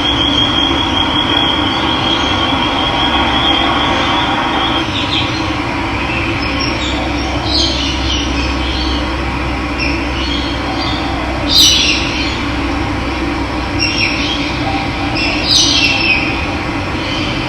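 Steady rush of running water, with a high trill in the first few seconds and birds chirping now and then over it, loudest about twelve seconds in.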